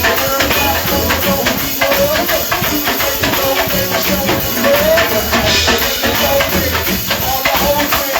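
A band playing with a steady beat: bass, drums and shaker-like percussion under a melody line.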